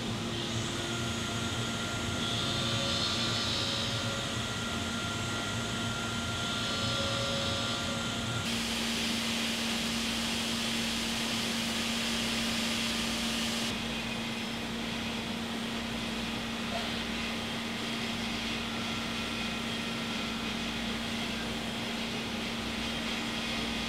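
Enclosed CNC saw-blade grinding machine running as it grinds the carbide teeth of a combination tablesaw blade: a steady machine hum with a grinding whir that swells twice, about four seconds apart. Near eight and a half seconds the sound changes abruptly to a steady hum with hiss.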